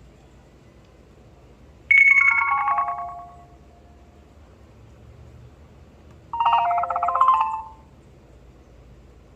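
An HTC Desire 530 ringtone playing: a short run of chime notes falling in pitch about two seconds in, then a brief cluster of chime notes a few seconds later.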